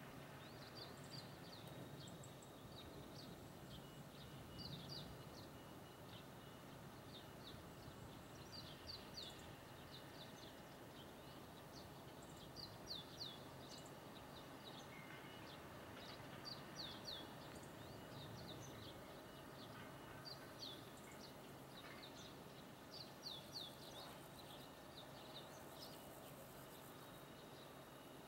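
Small bird calling over and over: short runs of three or four quick, high, falling chirps every couple of seconds, over a faint steady background hum.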